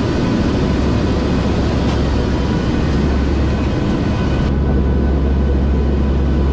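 Loud, steady drone of a hurricane hunter aircraft's engines heard inside the cabin, a deep hum under a dense rush with a few thin steady whines on top. About four and a half seconds in, the highest hiss drops away.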